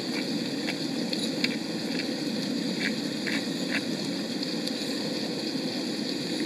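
Diced onion, bell pepper, celery and garlic sautéing in olive oil in a pan on a camp stove: a steady sizzle with scattered small pops.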